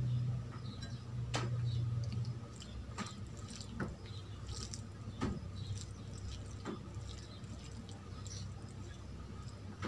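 Fingers mixing cooked basmati rice with dal on a steel plate: soft squishing with scattered light clicks and ticks of fingers against the plate, over a low steady hum that is stronger in the first two seconds or so.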